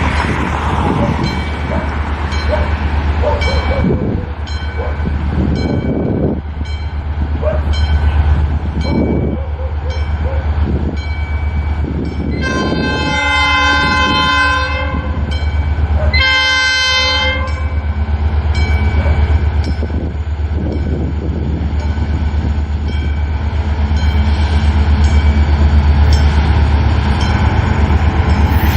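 Diesel locomotive hauling a container freight train: a steady deep engine rumble with wheels clicking over rail joints, and two chords on its horn about halfway through, the first longer than the second, sounded for the level crossing.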